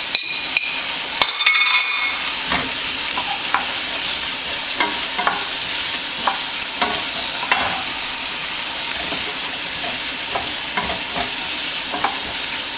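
Sliced red onions and grated ginger frying in oil in a stainless steel pan with a steady sizzle, while a wooden spoon stirs and scrapes them, knocking against the pan. A spoon clinks with a brief ringing tone about a second and a half in as the ginger is scraped off a plate.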